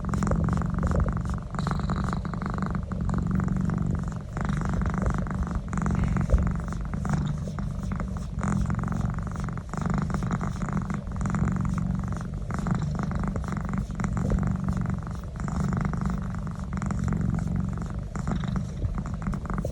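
Domestic cat purring continuously as its neck is massaged, the purr swelling and easing about every two seconds.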